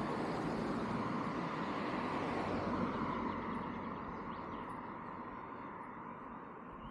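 A road vehicle passing along the street, its engine and tyre noise peaking a little before halfway and then fading away.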